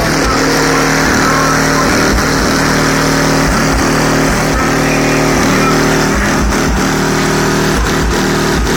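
Music played loud through a car audio system's subwoofers, the amplifier wired down to 0.5 ohms on low power, with deep bass hits in short pulses under sustained tones.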